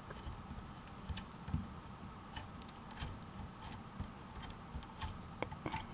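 Faint, irregular small metallic clicks and ticks as chrome Schaller guitar tuner hardware is turned and tightened by hand on the headstock, over a faint steady hum.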